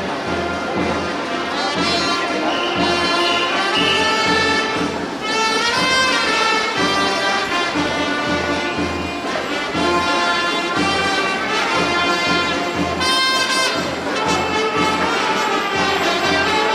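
Loud band music: wind instruments playing a melody over a steady drum beat, with a cymbal-like crash about two-thirds of the way through.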